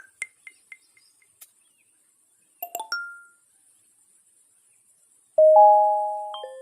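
Chime-like sound effects. First comes a quick run of short high pings, about four a second. A brief cluster of tones follows around three seconds in. About five seconds in, a loud bell-like ding-dong starts and rings on, fading slowly.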